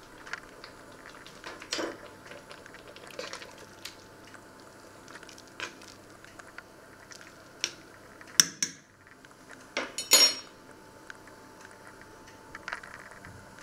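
A metal spoon scraping and clinking against the side of a stainless steel pot while stirring spaghetti, with scattered light clicks and a few loud ringing clangs a little past halfway.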